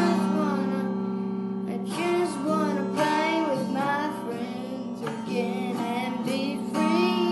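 A young boy singing a country blues song to his own strummed acoustic guitar, the chords ringing under his high voice.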